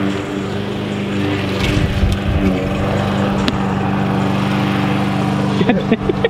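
An engine running at a steady speed, a constant low drone with no change in pitch.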